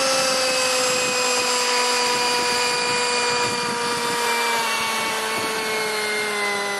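Radio-controlled scale model of a DHC-5 Buffalo transport plane flying past, its motors giving a steady whine that slowly drops in pitch.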